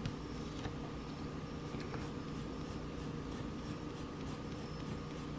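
Shading strokes rubbed onto drawing paper: a faint, even scratching of quick back-and-forth strokes, about three a second from about two seconds in.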